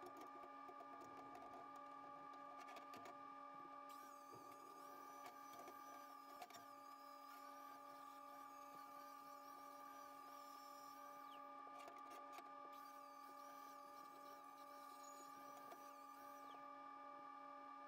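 Near silence: a faint steady hum made of a few held tones, with faint wavering high tones in the middle stretch.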